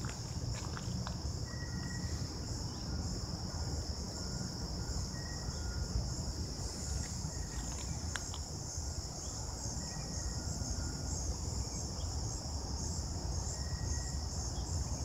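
Steady, high-pitched chorus of insects trilling without a break, over a low rumble, with a few short high notes coming and going.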